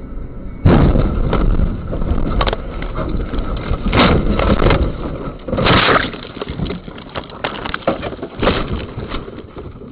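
A car crash heard from inside the car: a loud rumbling that starts suddenly about a second in, then a run of heavy thumps and knocks as the car goes off the road.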